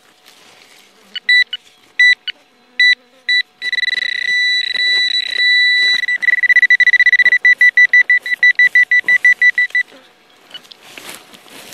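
Garrett pinpointer beeping in the hole: a few short high beeps, then a steady tone held for several seconds as it sits on buried metal, breaking into fast pulsing beeps that stop near the end. The alert signals a metal target right at the probe's tip.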